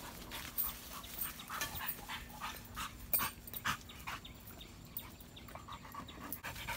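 Hunting dog panting and sniffing in short quick breaths as it noses through undergrowth and rocks on the trail of a snake, with leaves and stems rustling around it.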